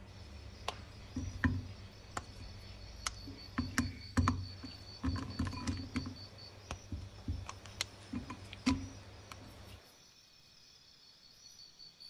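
A bar of dark chocolate snapped into pieces by hand, with a dozen or so sharp cracks over about eight seconds as squares break off and drop into a glass bowl, over a low hum that stops near the end.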